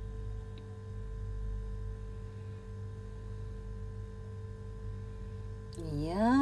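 Steady low kitchen hum while string beans are stirred in a frying pan on a gas stove, with one faint clink about half a second in. Near the end a woman's voice rises in pitch and holds.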